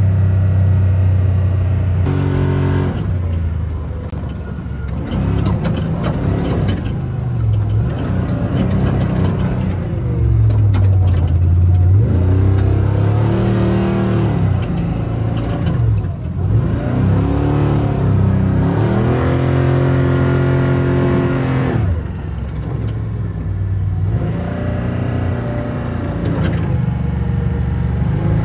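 Big-block Ford V8 of a Ford Ranger trophy truck, heard from inside the cab while being driven hard. The engine pitch climbs and falls several times as it accelerates and lifts off through the gears.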